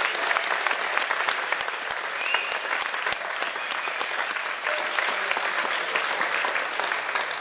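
Audience applauding steadily, dense continuous clapping with a few faint voices mixed in.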